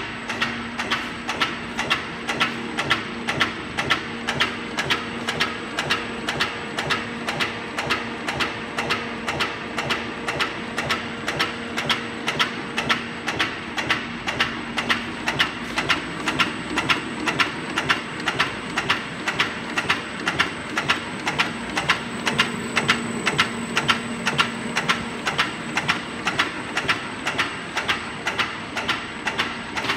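A SCHAAL SEP12 120 kN high-speed stamping press running at low speed, with an even clack at each stroke, a little under three a second, over a steady motor hum.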